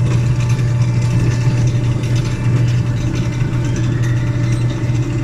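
Amusement-park ride train running with a steady, loud low mechanical hum and rattle.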